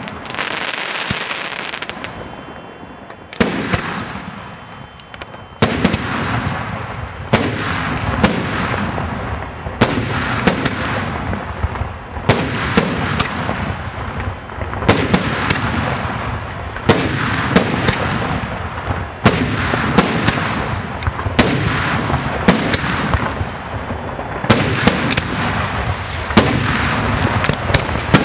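Aerial firework shells bursting in quick succession: sharp bangs every second or two, with crackling noise between them. There is a brief lull about two to five seconds in, then the barrage picks up again.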